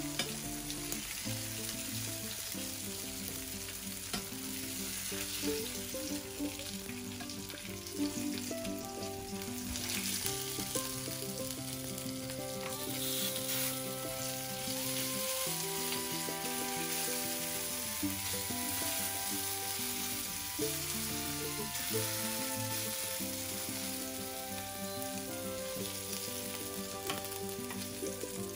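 Salmon fillets sizzling steadily in hot oil in a non-stick frying pan, with occasional taps and scrapes of metal tongs as the pieces are turned and lifted out.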